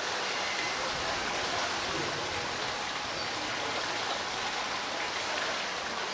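Steady rush of running water from a water feature, an even hiss-like noise without breaks.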